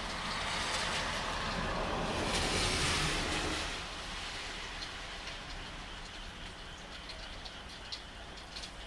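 Steady rain falling, swelling louder for the first few seconds and then easing to a softer patter with faint short high clicks.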